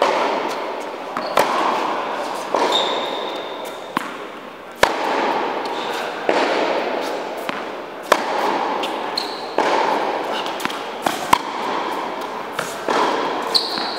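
Tennis ball being struck by rackets and bouncing on an indoor hard court during a rally: about a dozen sharp pops, roughly one every second or so, each trailing off in the hall's echo.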